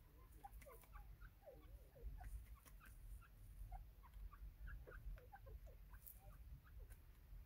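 Faint, soft bird calls: many short chirps and clucking notes scattered through, over a low rumble.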